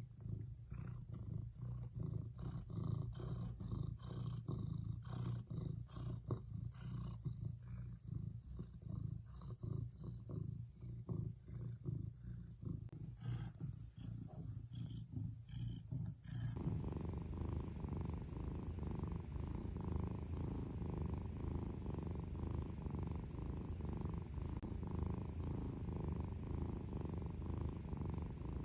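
Domestic cat purring close to the microphone in a fast, even throb. About halfway through it switches abruptly to a fuller, steadier purr.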